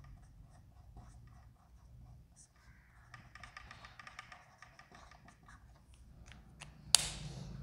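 Felt-tip marker squeaking and scratching on a whiteboard in short, faint strokes as a word is written. A sharp click about seven seconds in.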